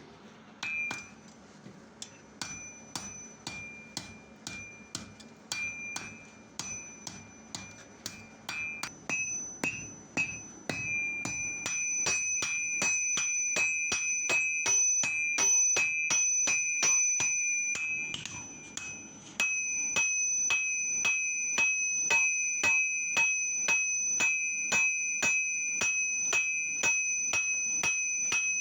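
Hand hammer striking hot iron on a steel anvil, each blow ringing with a clear metallic ping. Spaced, irregular blows for about the first ten seconds, then a faster, louder run of about three blows a second, with a short pause a little past the middle.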